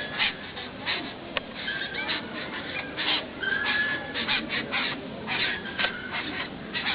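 Birds and squirrels calling in a squabble: a rapid, harsh chattering of short chirps, several a second, with a few brief whistled notes every second or two.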